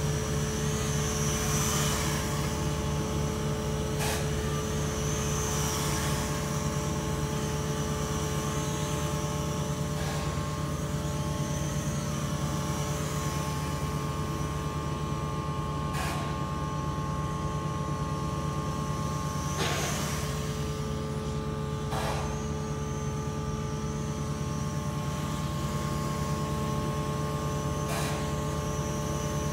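A steady mechanical hum at a fixed pitch, with a thin high whine wavering in pitch above it and a few faint clicks.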